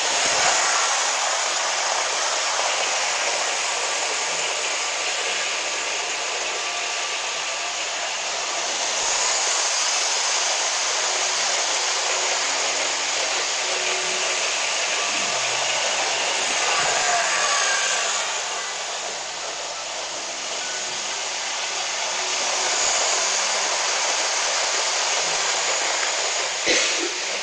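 Model electric train (Trix locomotive hauling LSM ICR coaches) running on metal track: a steady whirring hiss of motor and wheels that swells and eases as the train goes round, with one sharp click near the end.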